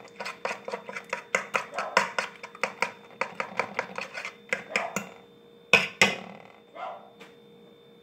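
Metal fork beating a raw egg on a ceramic plate: fast, regular clinks, several a second, for about five seconds. Two louder knocks follow near six seconds in, then a couple of lighter taps before it stops.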